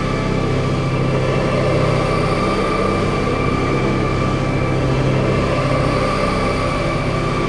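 Experimental drone-noise music played live: a loud, dense, unbroken wall of sound with a low rumble underneath and sustained high tones held over it.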